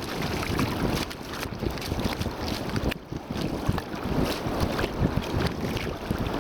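Strong wind buffeting the microphone, with the sea's surf washing underneath, a steady, gusting rumble without let-up.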